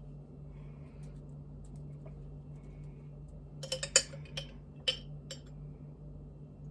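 A spoon clinking against a sauce jar while scooping out the last of the pizza sauce: a quick cluster of clinks about four seconds in and two more a second later, over a steady low hum.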